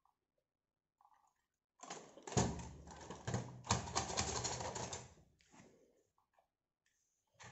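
Plastic rattling and clattering of a toy 4×4 RC crawler truck being handled and set down on a table, starting about two seconds in and lasting about three seconds.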